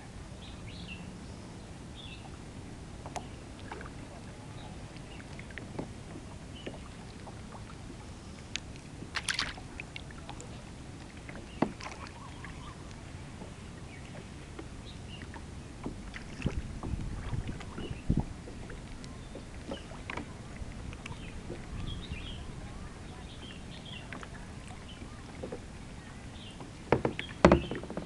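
Kayak moving across a lake: paddle dipping and splashing in the water over a steady hiss of wind and water, with scattered sharp knocks and splashes, the loudest near the end.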